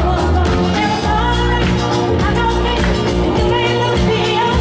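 Loud pop song with a singing voice and a steady beat, playing for a group dance.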